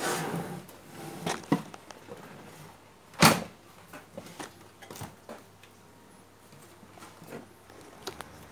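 Scattered clicks and knocks of a CRT television's main circuit board being handled and shifted in its plastic chassis frame, with one sharp knock about three seconds in.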